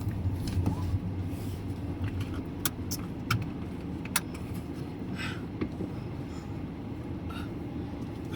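Steady low rumble of a car on the move, heard from inside, with a few light clicks about three to four seconds in.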